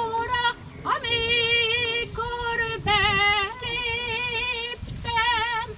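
Women's voices singing a Hungarian folk song, holding long notes with a wavering vibrato, with short breaks between phrases.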